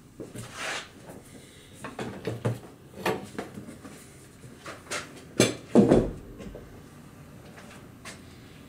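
Scattered clinks and knocks of metal parts being handled and set in a bench vise, the loudest pair about five and a half seconds in, then quiet workshop background.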